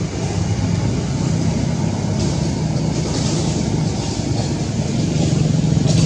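Motor vehicle engine running with a steady low rumble, joined by a hiss about two seconds in.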